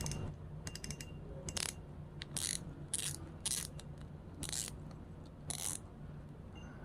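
Shimano Vanford 3000 spinning reel being handled: a string of light mechanical clicks and short ratcheting bursts, spread unevenly over several seconds.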